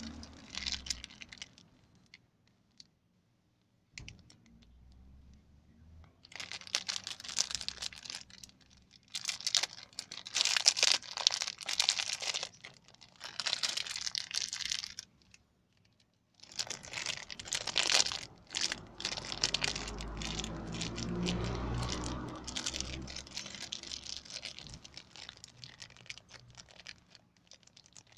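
Paper and plastic packaging of a brake pump repair kit crinkling and tearing as it is opened and handled, in ragged bursts with a short pause midway.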